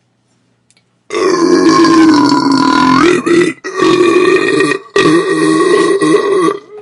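A person belching loudly: three long, drawn-out burps in quick succession, starting about a second in, each holding a fairly steady pitch.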